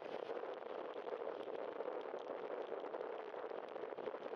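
Bicycle tyres rolling over wet pavement: a steady watery hiss with many small crackling ticks of water spray.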